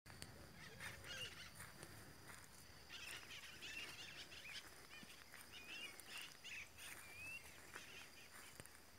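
Faint birds chirping and calling, in many short high whistles that rise and fall, over a steady high-pitched whine.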